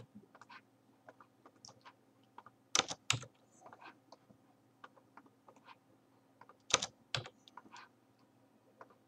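Computer keyboard and mouse being used: sparse, light key taps and clicks, with a few louder clicks about three seconds in and one sharp click near seven seconds.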